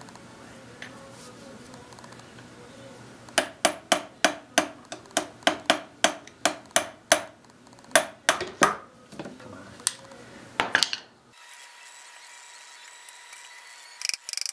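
Hammer blows on the handwheel of a Hendey lathe's apron, metal on metal, trying to drive a handwheel that is stuck tight off its shaft. A quick run of about sixteen sharp ringing strikes, about three a second, then a few more after a short pause.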